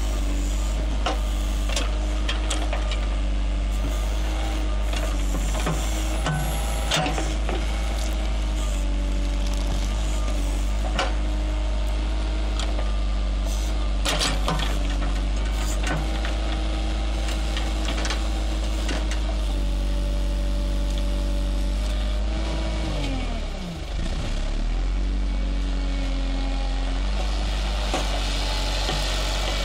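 JCB Sitemaster backhoe loader's diesel engine running steadily while the backhoe digs, with scattered sharp knocks and cracks from the bucket working soil and roots. About three-quarters of the way through the engine note drops sharply and climbs back.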